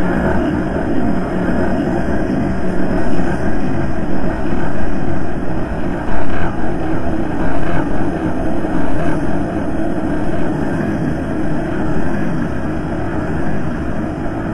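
Dark ambient drone piece: a dense, steady wash of droning noise, heaviest in the low and middle range, with no beat and no clear tones, swelling and easing slightly.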